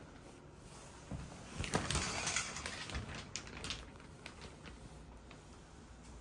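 Shower curtain pulled aside, a rustle with a few sharp clicks lasting about two seconds, starting under two seconds in.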